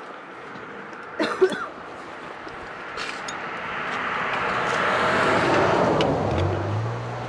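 A vehicle going by, a broad noise that swells over a few seconds and then fades, with a low steady hum coming in near the end. A brief sharp sound, the loudest moment, comes about a second in.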